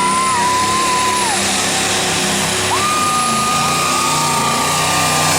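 Diesel semi-truck engine running hard under the pull, with a high turbo whistle held twice and dropping away each time over a steady engine drone.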